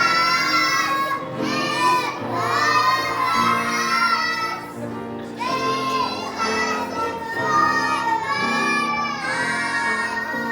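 A child singing a song in a high voice, holding long notes, over a steady instrumental accompaniment.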